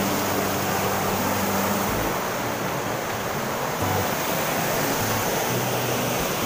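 Fast river water rushing and churning over rocks and a small cascade, a steady, even rush.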